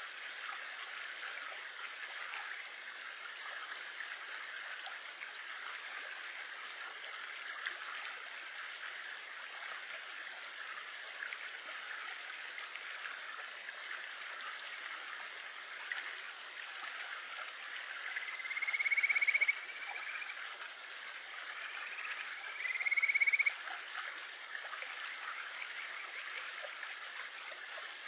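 Japanese stream frog (kajika frog, Buergeria buergeri) giving two rising, trilled whistling calls, each about a second and a half long, the first about two-thirds of the way in and the second a few seconds later. A shallow stream runs steadily over rocks beneath the calls.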